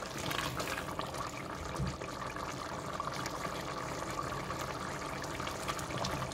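A pot of watery goat stew boiling steadily, with a busy bubbling and many small pops as it cooks down to thicken. A silicone spatula stirs through it near the start.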